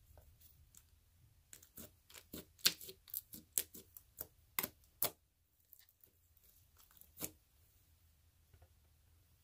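Blue slime pressed and squished by hand, giving a rapid run of sharp clicking pops that starts about a second and a half in and thins to a few scattered pops in the second half.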